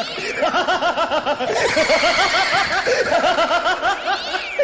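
Loud laughter: a rapid, unbroken run of short 'ha-ha' syllables, about five or six a second.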